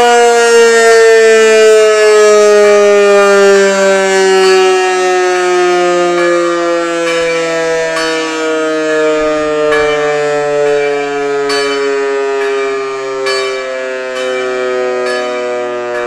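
VEM DS 977 electromechanical rotary siren winding down, its tone falling slowly and steadily as the rotor coasts to a stop after the test. In the second half, sharp bell strikes begin sounding over it.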